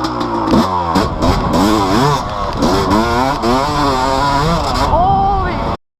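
Yamaha YZ250 two-stroke dirt bike engine, fitted with BeRad's Freight Train performance kit, revving up and down repeatedly as it is ridden. The sound cuts off abruptly just before the end.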